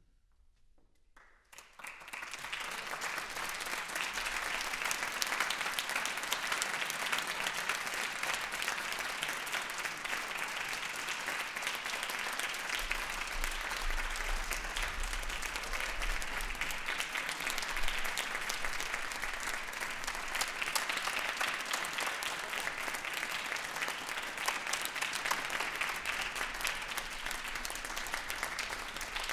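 Concert audience applauding, breaking out after a brief silence about a second and a half in and then going on steadily.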